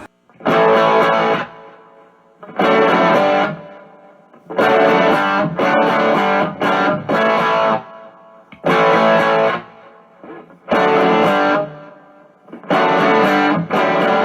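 Outro music: distorted electric guitar playing chords in a stop-start rhythm, with a pause after each phrase.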